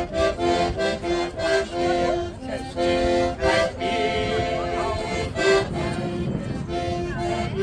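Accordion played by a street musician: a lively tune in short notes and chords, with crowd voices behind.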